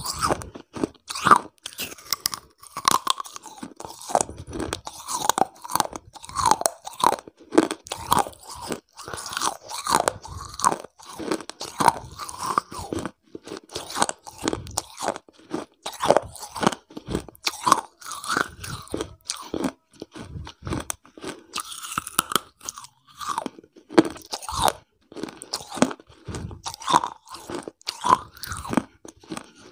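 Close-miked chewing: a hard, brittle piece is bitten off and crunched between the teeth again and again, with sharp, irregular crunches all through, right at a clip-on microphone held at the mouth.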